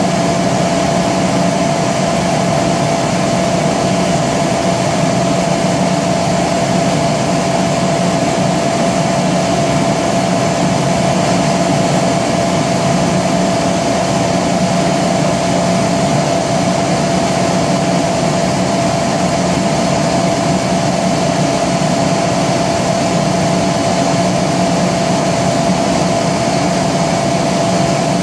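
Kaeser CS 121 100 hp three-phase rotary screw air compressor with a rebuilt airend, running loaded: a loud, steady machine drone with one constant tone over a hiss.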